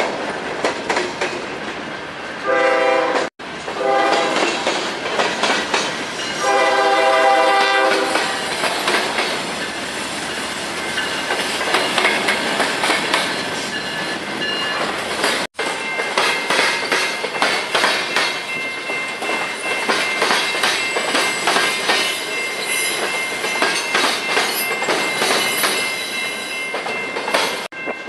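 Freight cars rolling past with steady wheel clatter over the rail joints. A diesel locomotive horn sounds twice: briefly about two and a half seconds in, cut off suddenly, then for about a second and a half around seven seconds in. Thin, high, steady wheel squeal runs through the second half.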